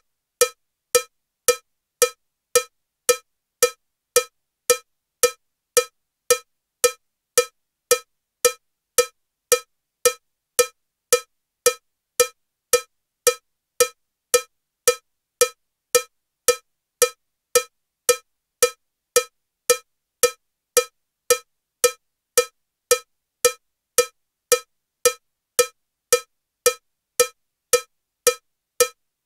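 Metronome clicking at 112 beats per minute with a cowbell sound: evenly spaced, equally loud cowbell strokes, just under two a second.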